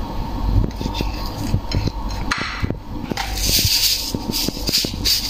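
Salt shaken from a container over raw red mullet on a ceramic plate: a hissing rattle of grains about three and a half seconds in, among scattered light clicks and taps as the fish are handled, over a low steady hum.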